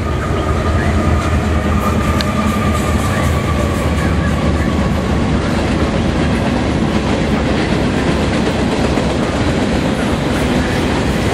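Freight train with a CSX diesel locomotive and a string of boxcars, hoppers and tank cars passing close by: a steady loud rumble of engines and steel wheels with clickety-clack over the rail joints. A thin high tone dies away about five seconds in.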